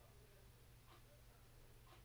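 Near silence: faint room tone with a steady low hum and a soft tick about once a second.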